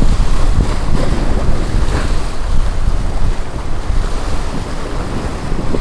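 Sea waves surging and splashing against the boulders of a harbour breakwater, with wind buffeting the microphone and a heavy low rumble over the water noise.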